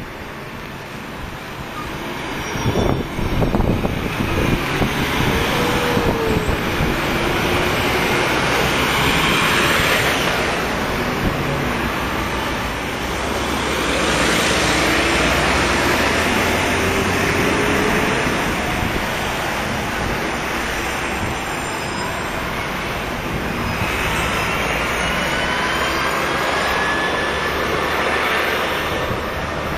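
Road traffic on a city street: cars, vans and a truck passing one after another, the sound swelling and fading as each goes by. There is a rising whine near the end.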